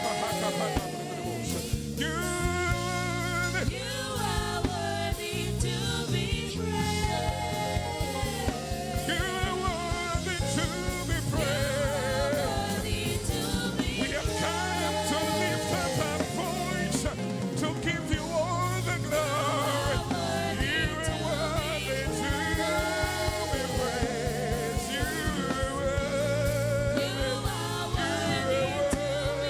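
Gospel praise and worship music: voices singing over a band with sustained bass notes and a steady drum beat.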